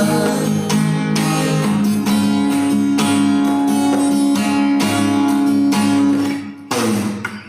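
Backing music in an instrumental break, led by strummed acoustic guitar chords, with no singing; it dips briefly near the end.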